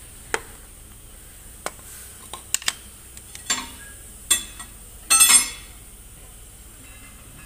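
Scattered sharp metallic clinks and knocks of metal tools and parts being handled in a truck workshop, with a louder ringing metal clatter about five seconds in.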